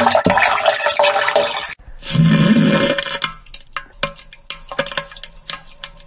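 Diarrhea sound effect: a wet, spluttering gush that breaks off after nearly two seconds, then a second wet burst with a low, pitched rumble, trailing off into scattered sputters and pops.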